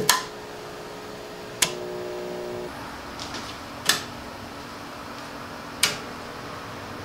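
Switch clicks on a 12 V manual battery charger being turned on, four sharp clicks about two seconds apart. A steady electrical hum starts with the first click and shifts pitch at the second.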